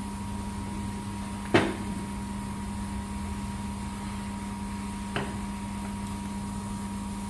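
Steady electrical hum of a 2000 W laser welding machine standing by, not yet welding, with two short knocks: a sharp one about one and a half seconds in and a fainter one near the end.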